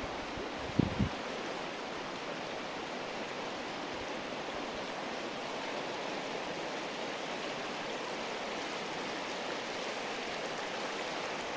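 Shallow river running over a stony bed: a steady, even rushing of water. A brief low buffeting on the microphone about a second in.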